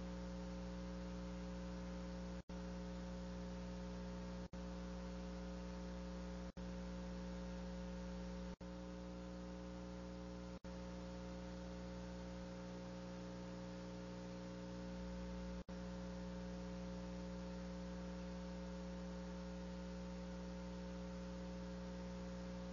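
Steady electrical hum on the audio line, a stack of low tones over faint hiss. Several times it cuts out for a split second, about every two seconds for the first ten seconds and once more a little past the middle.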